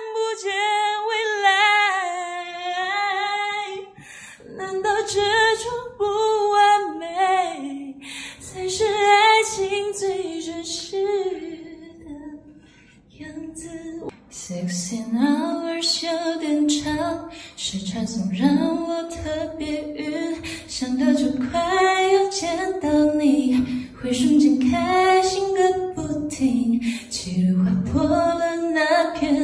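A woman singing unaccompanied, with no backing track. She opens on a high held note with vibrato and sings phrases that break off about twelve seconds in, then goes on in a lower melody.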